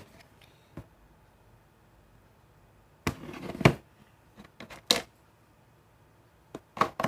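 Sticky, under-activated slime being stirred and worked by hand: a few short squelches and clicks, the longest about three seconds in.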